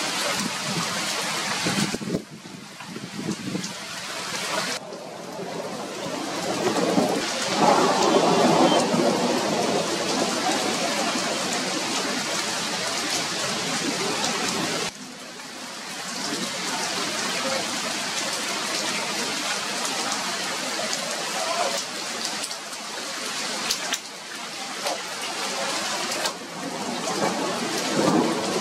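Heavy rain falling steadily, with thunder rumbling about eight seconds in. The rain sound changes abruptly several times.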